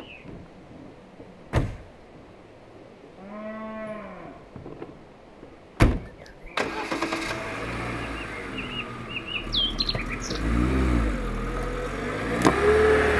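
A car door opens with a click and a few seconds later slams shut; then the Lada Niva's four-cylinder engine starts and runs steadily. A cow moos twice in the background and birds chirp.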